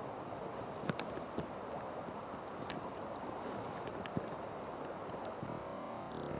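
River water lapping and flowing close to the microphone, with wind on the microphone, and a few small sharp clicks or splashes about a second in and again around three and four seconds.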